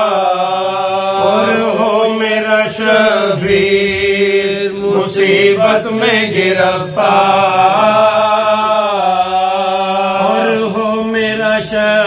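Male voice chanting a marsiya, an Urdu elegy, in long drawn-out melodic phrases with wavering ornaments, over a steady low held note.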